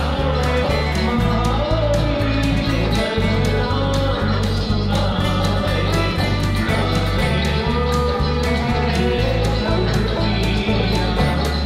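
Background music with plucked guitar, a steady repeating bass line and a regular beat.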